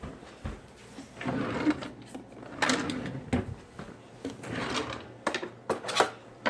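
Rummaging through a drawer: objects rattling and sliding against each other, with a few sharp clicks near the end.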